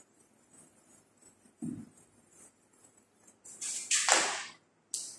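Whiteboard duster wiping across the board: a few brief hissing swishes near the end, with a short soft thud about a second and a half in.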